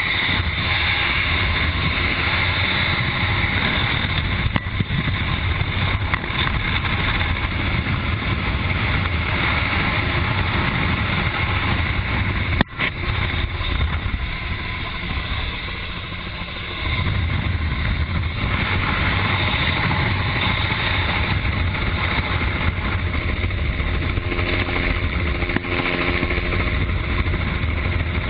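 Steady drone of a light aircraft's engine with wind rushing through the open cabin door, heard from inside the cabin. A single sharp click sounds about halfway through, and the low drone eases for a few seconds afterwards before coming back.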